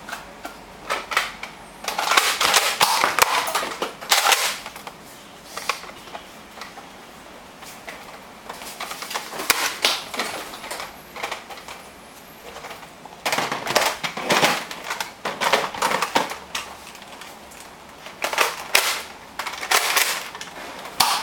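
Toy Nerf foam-dart blasters being primed and fired: clusters of sharp plastic clacks and snaps, separated by quieter stretches.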